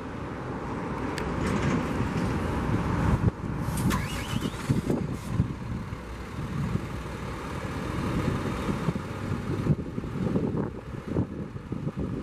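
Diesel engine of a Hino 338 grapple truck, a 260 hp Hino J08E, running as the truck drives slowly up and comes to a stop. A short rising whine sounds about four seconds in.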